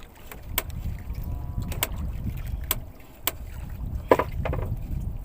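Steady low rumble of wind on the microphone, with several sharp clicks and knocks scattered through it. The loudest knock comes about four seconds in.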